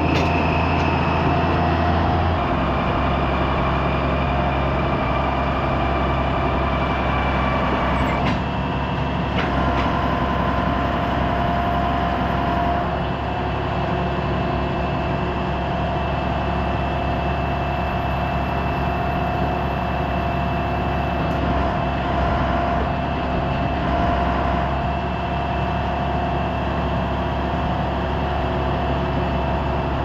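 Tractor engine running steadily while it hauls and backs a dump trailer loaded with silage.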